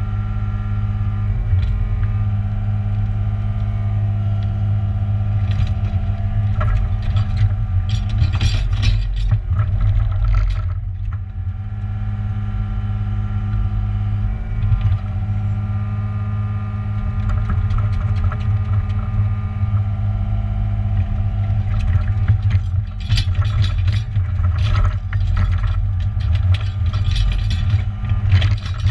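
New Holland excavator's diesel engine running steadily under working load, with its bucket scraping and clattering through stony soil in bursts about eight seconds in and again over the last several seconds.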